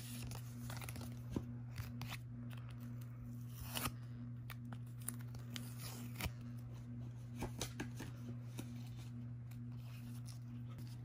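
Washi tape being peeled off a clear plastic photocard toploader, with scattered small plastic clicks and crinkles from handling, over a steady low hum.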